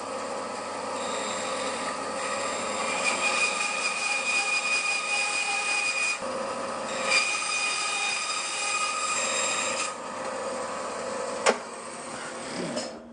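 Bandsaw blade cutting through timber in two passes, with a short break about six seconds in. After about ten seconds the saw runs on more quietly, with a sharp knock shortly after.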